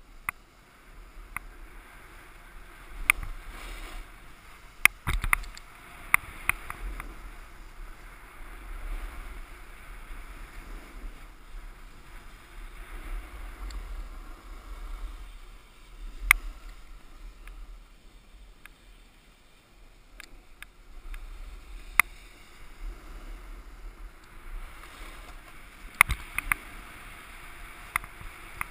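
Snowboard sliding and carving over groomed snow, its edges hissing and scraping in waves as the rider turns, with wind rumbling on the helmet-mounted camera and several sharp knocks.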